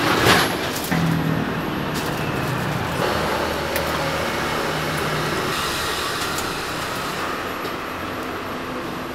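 Steady rushing background noise with a low hum, after a short clatter at the very start.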